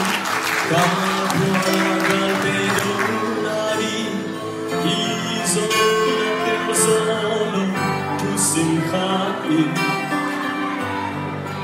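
A man singing a worship song into a microphone over an instrumental accompaniment.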